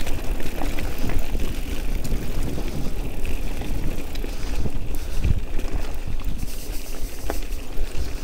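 Bicycle rolling over a rough, stony track: a steady rumble of wind on the microphone, with frequent small rattles and knocks from the bike.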